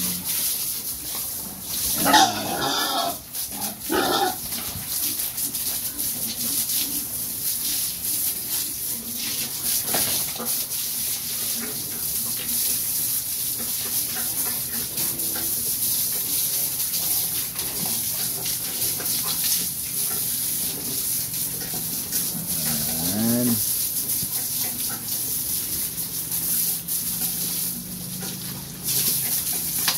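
Young pigs squealing and grunting while being washed. There are two short squeals about two and four seconds in and a lower grunt about three-quarters of the way through, over a steady hiss of running water.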